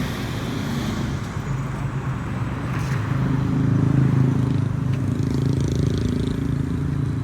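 Road traffic: a motor vehicle's engine hum swells about three to five seconds in, then eases back into the general traffic noise.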